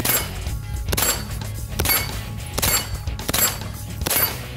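Six semi-automatic shots from a Stag Arms Model 9T 9mm carbine, about one a second, each with a short ring after it, over background music.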